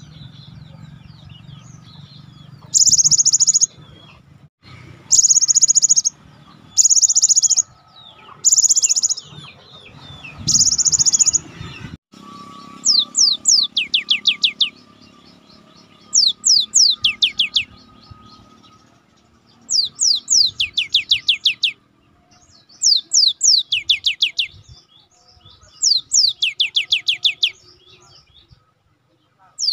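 Cinereous tit (gelatik batu) singing. First come five harsh, buzzy, high bursts of about a second each. Then, after an abrupt change, come repeated phrases of rapid notes, each note falling steeply in pitch, one phrase every two to three seconds.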